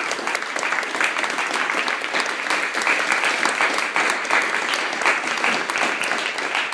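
A small audience applauding steadily, with one pair of hands clapping close by.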